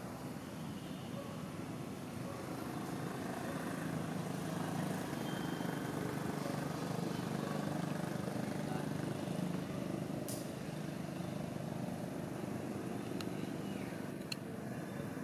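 Steady low rumble of distant motor traffic, swelling a little through the middle, with a brief sharp click about ten seconds in.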